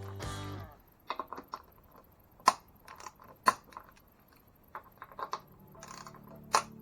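A series of sharp, irregular clicks and knocks, like small parts and hand tools being handled during bicycle work, after background music stops; the music comes back faintly near the end.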